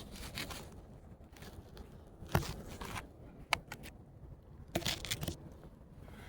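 Camera handling noise: scraping and rustling with a few sharp knocks as the camera is propped up.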